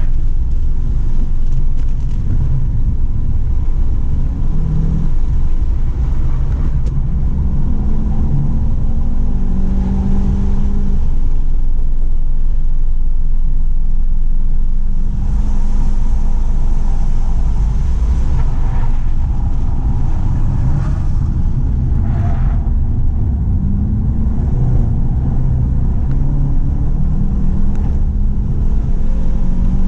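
2017 Volkswagen GTI's tuned turbocharged 2.0-litre four-cylinder engine under hard acceleration on track, its pitch repeatedly rising and falling as it revs through the gears and slows for corners, over a steady heavy rumble of road and wind noise.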